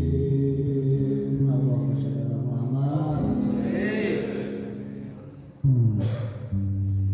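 Devotional group chanting over sustained music, fading away. About five and a half seconds in, new music starts abruptly and loudly.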